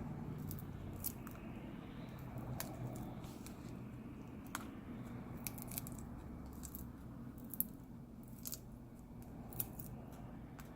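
Scattered small sharp clicks and ticks of a tool prying at a phone's heated plastic bracket, over a faint low steady hum.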